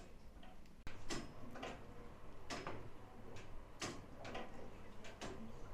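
Mechanical clocks ticking: sharp ticks roughly a second apart, some loud and some faint, as from more than one clock.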